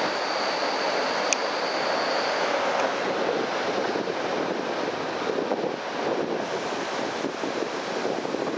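Steady rushing wind and running noise of a moving electric commuter train, heard at an open window with wind buffeting the microphone. There is a single sharp click about a second in and a faint high whine over the first couple of seconds.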